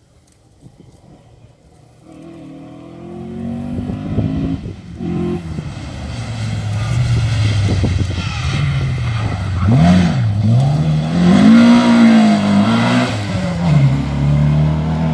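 Historic rally car's engine approaching and driving past hard, growing louder over several seconds. Its pitch falls and rises repeatedly as the revs go up and down, and it is loudest near the end as the car passes close.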